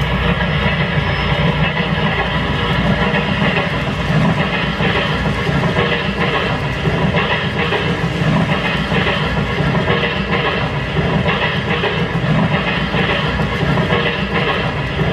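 N gauge model freight train, a DE10 diesel locomotive hauling container wagons, running past on the layout's track: a steady running noise with wheels clicking over the rail joints.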